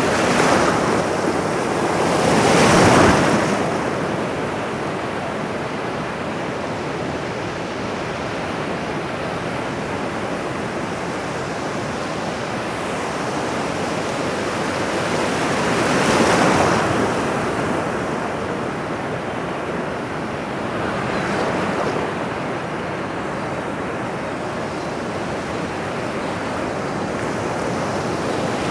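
Ocean surf: a steady wash of waves with a louder wave breaking about three seconds in, another about midway, and a smaller one soon after.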